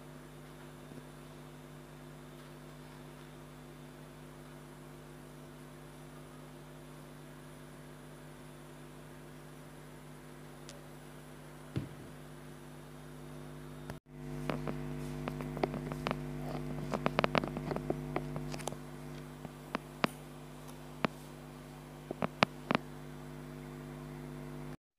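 A steady electrical hum made of several steady tones. About halfway through it gets louder, and a string of light clicks and taps comes in until near the end.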